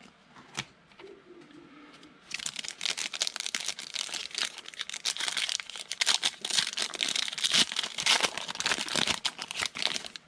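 The wrapper of a football trading-card pack being torn open and crinkled as the cards are pulled out, starting about two seconds in and going on loudly.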